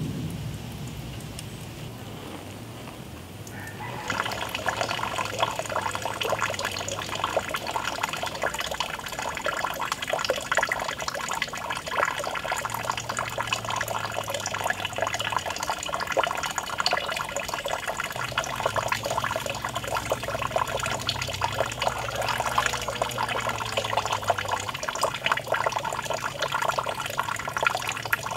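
Water pouring from a small fountain spout into a shallow pond, a steady splashing and trickling that starts about four seconds in.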